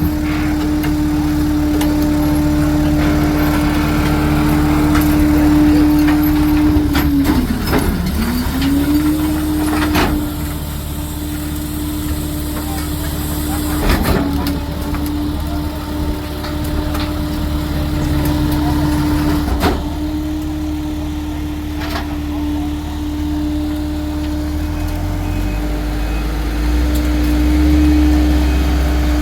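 Heavy cleanup machinery running: a steady whine over a low engine rumble. The whine dips in pitch and recovers about eight seconds in and drops again near the end. The rumble grows heavier after about 25 seconds, and there are a few sharp knocks.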